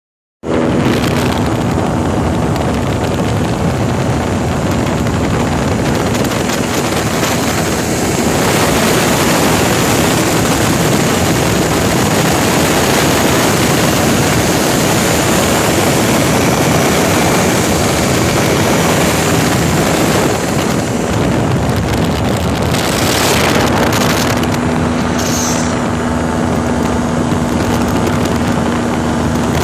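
Loud, steady wind rushing over the microphone of an ultralight trike in flight, with the steady drone of the trike's engine underneath.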